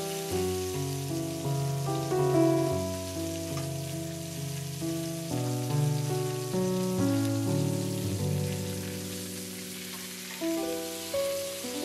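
Slow background piano music, single notes and chords sounding and dying away, over a steady hiss.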